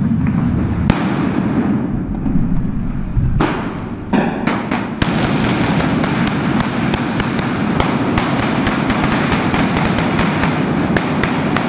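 Rifle gunfire at close range in a large concrete hall: a few scattered shots in the first seconds, then rapid, dense shooting, several shots a second, from about five seconds in.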